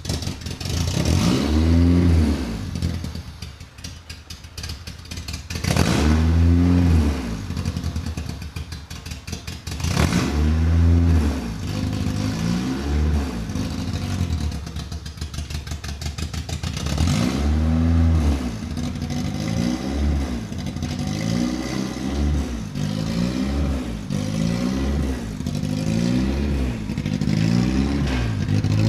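Lifted Honda Civic's four-cylinder engine revving up and falling back again and again as it is driven, with clattering knocks. In the last several seconds the revs come quickly, about one a second.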